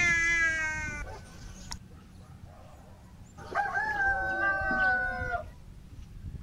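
Rooster crowing twice: a first crow that falls slowly in pitch at the start, and a second, longer crow about three and a half seconds in that holds level before dropping off at the end.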